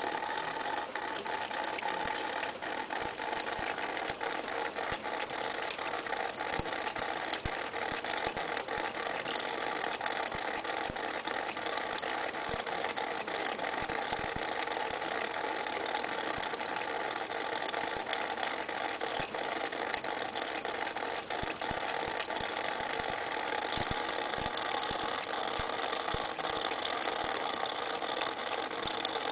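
Thin stream of tap water running from a kitchen faucet into a stainless steel sink, a steady splashing hiss, with small irregular clicks as a cat laps at the stream.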